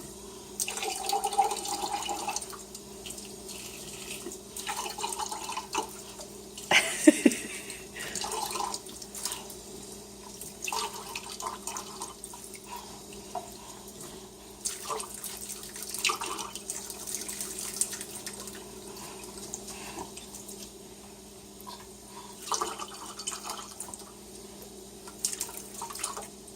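Kitchen sink tap running, water pouring into a glass and splashing in the sink, with irregular splashes and clinks and one louder splash about seven seconds in.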